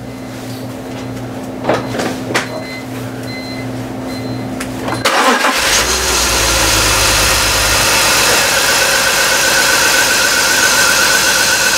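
A 2004 BMW 325xi's inline-six engine cranks and starts about five seconds in. It runs at a raised idle for a couple of seconds, then settles into a steady idle. The engine has low compression in cylinder one. Before it starts there is a low steady hum and a couple of clicks.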